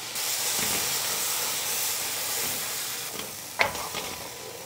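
Wet ground paste of garlic, ginger, green chilli and coriander hitting hot ghee and sizzling with a steady hiss that sets in at once and fades after about three seconds. A single sharp knock on the pan about three and a half seconds in.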